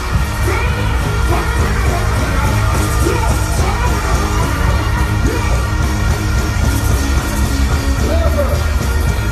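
Loud dancehall music played through a sound system, with heavy, steady bass and a voice singing over it.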